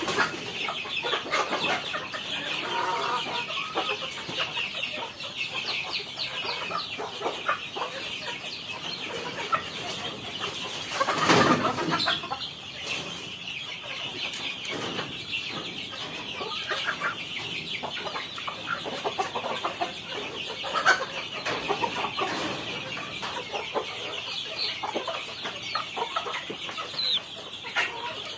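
A flock of young native chickens peeping and clucking continuously in a dense chorus of short high chirps. There is one brief louder noise about eleven seconds in.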